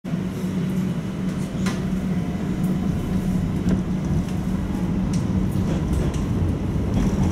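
Inside a moving tram: the steady low hum of the tram running along its rails, with a few sharp clicks.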